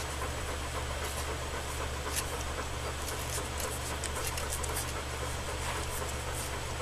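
Alaskan Malamute puppies suckling at their mother, a scatter of small wet clicks over a steady low hum, the clicks thickest in the middle.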